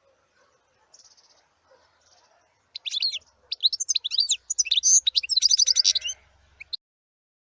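Bird singing: a faint buzzy note about a second in, then a loud, quick run of high notes that sweep up and down in varied patterns and stop suddenly near the end.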